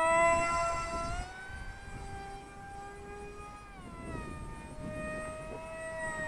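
Electric motor and propeller of a Zeta Z84 flying wing on 4S power whining in flight. It is loudest in the first second as the wing passes close, its pitch rises a little about a second in and drops about four seconds in, and it then holds a steadier, lower whine.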